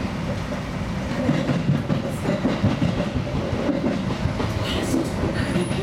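Seibu 2000 series electric commuter train under way, its wheels clattering over rail joints and points, with a steady low rumble and rattle of the car, heard inside the leading car.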